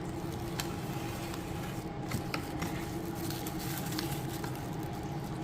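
Packaging being handled: a few soft clicks and light rustles scattered over a steady low background hum.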